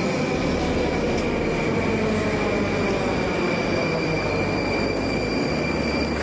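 Metro train standing at the platform, giving out a steady loud hum with an even high whine over it.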